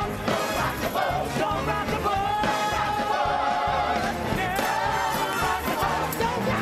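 Musical theatre ensemble singing a up-tempo show tune over instrumental accompaniment, with a steady bass beat and one long held sung note from about two seconds in.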